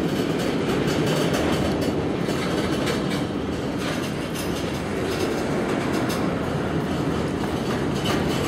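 Freight train's covered hopper cars rolling past: a steady rumble of steel wheels on the rails, with occasional clacks.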